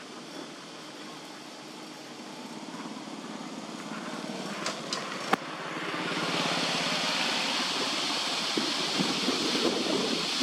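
Steady rushing background noise that grows louder about six seconds in, with a couple of sharp clicks shortly before.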